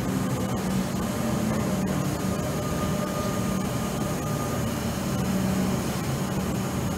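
Metro Trains Melbourne electric suburban train running into the station below, a steady rumble of wheels and motors with a constant low hum. A faint high steady tone comes in for a couple of seconds in the middle.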